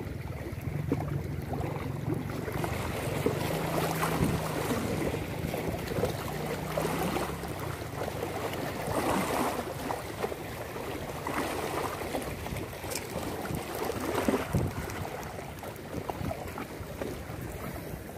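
Small waves washing against the rocks of a seawall in soft, irregular swells, with wind buffeting the microphone. A low steady hum runs under it and stops about seven seconds in.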